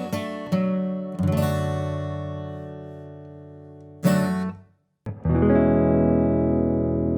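Acoustic guitar playing the song's closing chords. A strum rings out and slowly fades, a second strum comes about four seconds in, and after a brief dropout a last chord holds steady.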